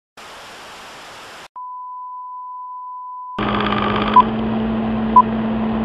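Electronic intro sounds: a burst of static hiss for about a second, then a steady test tone for about two seconds, then hiss over a low hum with a short beep about once a second.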